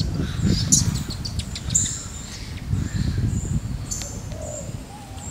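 Birds chirping and whistling in short high calls over a fluctuating low rumble of outdoor background noise.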